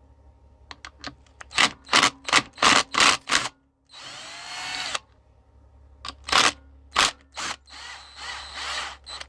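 Hand-held power drill-driver, most likely spinning out the engine-case bolts, triggered in a quick string of short bursts. It then runs twice for about a second each, the pitch gliding as it spins up and down. A low steady hum lies underneath.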